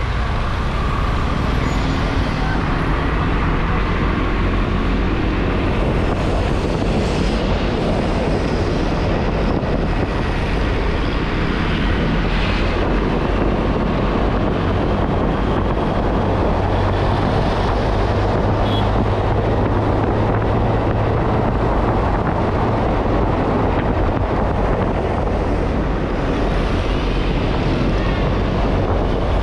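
Motorbike riding along at a steady speed: the engine's low, even hum under a constant rush of wind and road noise on the microphone.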